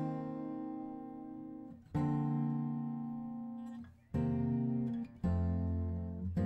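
Background music: an acoustic guitar strumming chords, each left to ring and fade before the next, a new chord about every one to two seconds.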